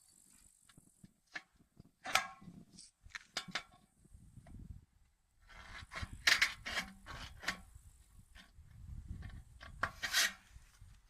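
Hand snips cutting a sheet-metal drip cap: a series of short, sharp snips and clicks in several groups, busiest a little past the middle and again near the end, with the metal strip being handled between cuts.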